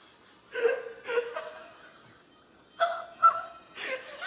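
People laughing in short bursts, in two bouts: one starting about half a second in and a stronger one near the end.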